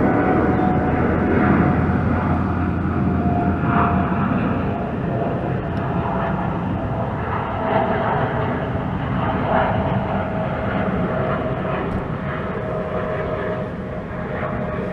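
Boeing 787-8 Dreamliner's twin turbofan jet engines at climb-out thrust just after takeoff: a steady jet roar with a thin whine that slowly drops in pitch as the airliner climbs away.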